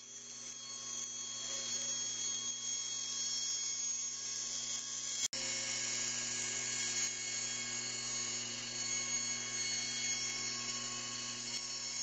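Bandsaw running steadily as a laminated birch plywood cylinder is turned against its blade, trimming away the outer layer. The sound cuts out for an instant about five seconds in, then carries on the same.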